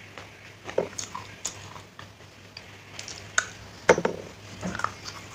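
Crunching and clicking of a hard, chalky white block being bitten and chewed, in scattered short crisp snaps with a sharper crack about four seconds in.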